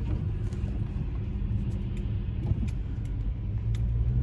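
Pickup truck's engine and drivetrain rumbling steadily at low speed over a rough, muddy trail, heard from inside the cab, with a few faint knocks; the rumble builds slightly near the end.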